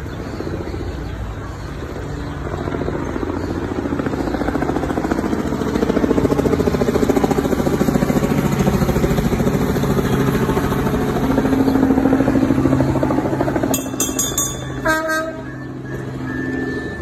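Trackless kiddie road train passing along the street, its motor running with a steady hum that grows louder as the carriages roll by. Near the end there is a short burst of clicking and high ringing.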